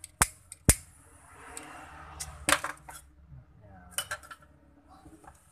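Scissors snipping at the headset's cable and its thin wires: several sharp metallic clicks, the loudest under a second in and at about two and a half seconds, with soft rustling of the cable being handled between them.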